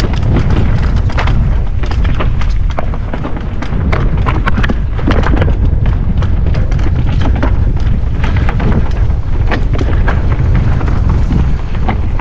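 Mountain bike riding down a rough enduro trail, heard on a helmet- or body-mounted action camera: a heavy low rumble of wind buffeting the microphone, with dense clattering and knocking from the bike over rocks and roots.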